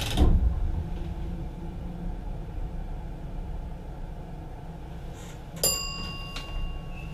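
Steady low running rumble inside the cab of a MAT64 electric multiple unit, with a brief loud rush of noise right at the start. About five and a half seconds in comes a single bell ding that rings on for over a second.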